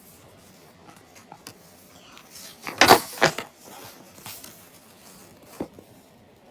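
A short burst of rattling clatter about three seconds in, amid scattered light clicks, with one more sharp click near the end.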